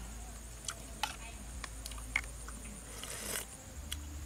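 Scattered small clicks and taps, with a short rustle about three seconds in, over a faint steady high-pitched hum.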